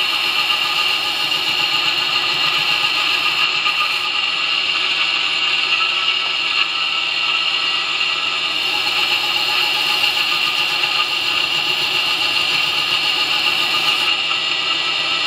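2x72 belt grinder running a coarse Scotch-Brite surface conditioning belt, with a steel knife blade held against it. It makes a steady grinding hiss with a high-pitched whine.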